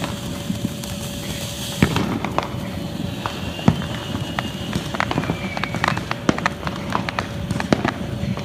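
Black Cat 1.21 Gigawatts ground fountain burning, a steady hiss of spraying sparks broken by many irregular sharp crackling pops.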